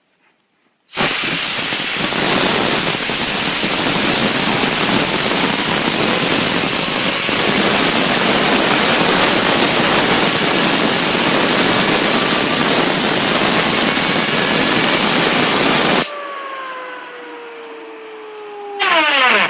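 Compressed air from an air compressor hissing steadily for about fifteen seconds, driving a fidget spinner inside a plastic water bottle. The air cuts off suddenly, and the spinner's whir falls in pitch as it spins down.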